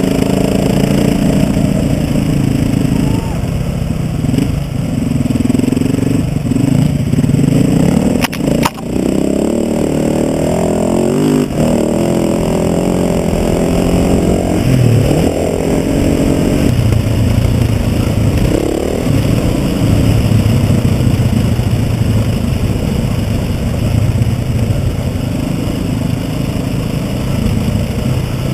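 Dirt bike engine running as it is ridden along a dirt track, its pitch rising and falling in steps with throttle and gear changes. There is a sharp knock about eight and a half seconds in.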